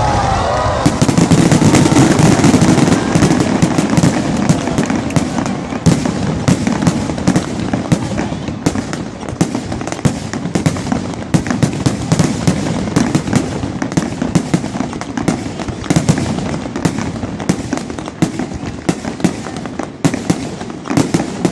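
Fireworks going off in quick succession: a dense, continuous run of sharp cracks and pops over a low rumble of bursts, loudest for a couple of seconds near the start.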